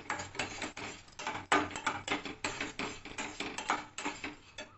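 Metal spatula scraping and knocking against a metal pot, stirring thick semolina halwa in quick, repeated strokes.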